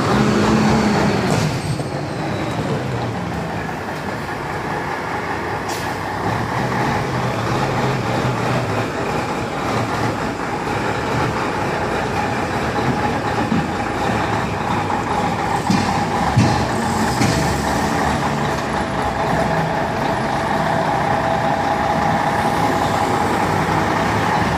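A Freightliner FLD tractor's Cummins N14 inline-six diesel running at low revs as the truck manoeuvres slowly, with a steady whine over the engine note. A few brief sharp noises come through, the loudest about 17 seconds in.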